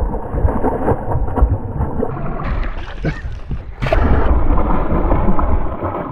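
Hooked bass thrashing and splashing at the surface beside the boat as it is netted, the splashing louder from about four seconds in, over wind rumble on the microphone.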